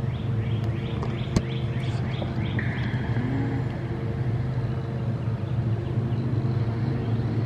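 A steady low machine hum, with a bird chirping a fast run of short falling notes over the first couple of seconds, and a single sharp click about a second and a half in.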